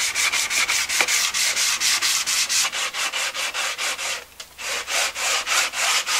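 Solid-surface (Corian-type) backsplash strip being sanded by hand to rough up its surface, in quick, even back-and-forth strokes of about five a second. There is a brief pause just after four seconds in.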